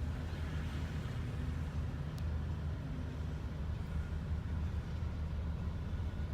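Diesel locomotive of a GO Transit train running at a steady idle: a low, even engine hum.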